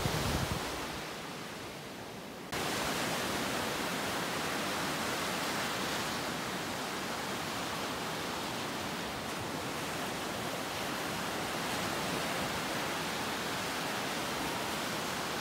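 Steady rushing hiss of ocean surf on a beach, cutting in abruptly about two and a half seconds in and holding level.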